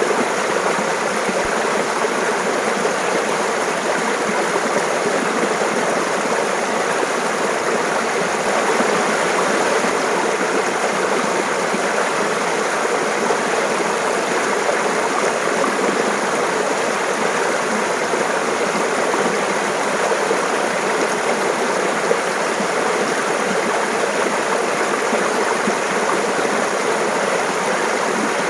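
A mountain stream babbling steadily, a continuous even rush of running water.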